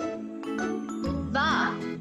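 Light children's background music with a steady bass line and bell-like tones.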